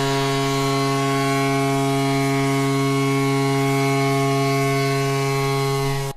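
Tampa Bay Lightning's arena goal horn sounding one long, steady blast, a chord of several horn tones at once, that cuts off suddenly near the end. It is way too long, overkill.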